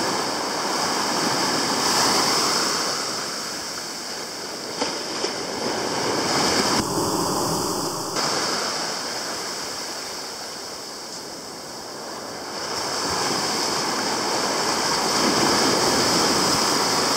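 Ocean surf breaking and washing up a sandy beach, swelling and fading as each wave comes in. Two brief clicks about five seconds in.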